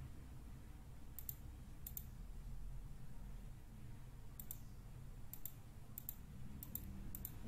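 Computer mouse clicking: about seven short, sharp clicks at irregular intervals, each a quick double snap of press and release, over a faint low steady hum.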